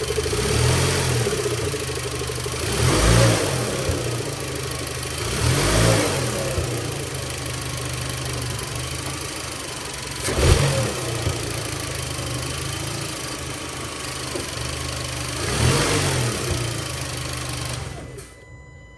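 Volkswagen 1.8T turbocharged four-cylinder engine idling, with five quick throttle blips that rev it briefly and let it fall back to idle; the one about ten seconds in hits hardest. The engine is rocking on its mounts when the throttle is stabbed and released, from a worn transmission mount.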